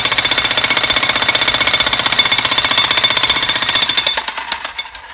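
Jackhammer pounding into a mortared fieldstone chimney, breaking the stonework away in a fast, steady rhythm. About four seconds in it slows into separate, weaker strokes and stops.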